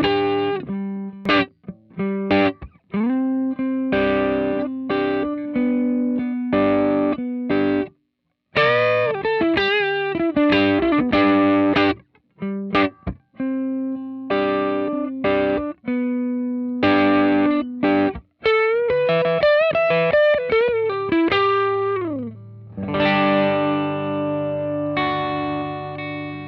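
Electric guitar played through a Cort x Moollon CMV15 amp, mic'd with a Shure SM57: choppy lead phrases with string bends and vibrato, a downward slide, then a chord left to ring out near the end.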